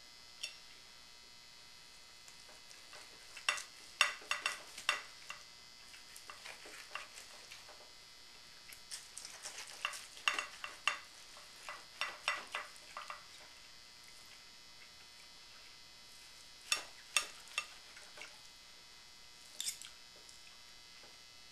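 Carving knife and fork slicing a roasted ham on a ceramic platter, clinking and scraping against the plate in several short bursts of clicks.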